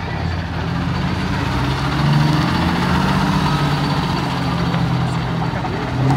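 Heavy six-wheeled military truck towing an artillery gun driving past close by, its diesel engine running with a steady low drone that is loudest about two seconds in.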